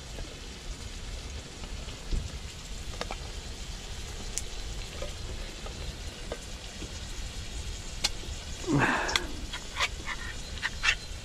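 Tin can being opened by hand, its metal lid cut and pried back: scattered sharp metallic clicks, with a louder scraping crunch about nine seconds in, followed by a few quick clicks.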